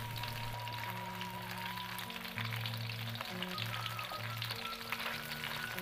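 Diced salted jambal roti fish frying in hot oil in a wok: a steady crackling sizzle. Soft background music with held notes plays underneath.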